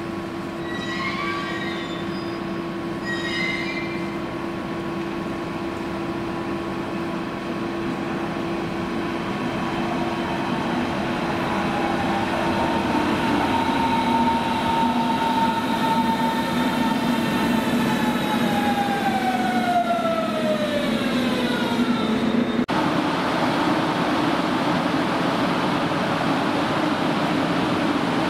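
Berlin S-Bahn class 481 electric train arriving with a steady electric hum, a couple of short squeals about one and three seconds in, then its motor whine falling steadily in pitch as it brakes. Near the end the sound changes suddenly to the even rumble of a DB class 112 electric locomotive with double-deck coaches.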